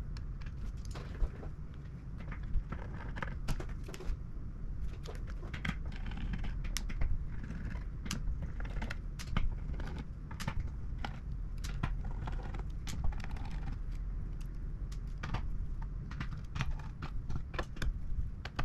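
Irregular small clicks, taps and rattles of a screwdriver and small metal and plastic parts handled during a graphics-card teardown, over a low steady hum.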